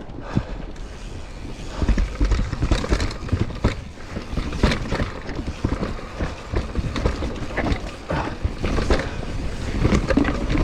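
Mountain bike riding down a rough dirt trail: irregular clatter and knocks from the bike over bumps and roots, over a continuous low rumble.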